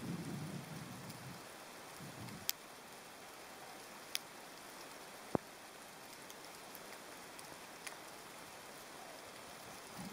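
Faint underwater ambience picked up by a camera in a waterproof housing: a steady hiss with a low watery rumble in the first second or so, and a few isolated sharp clicks scattered through it.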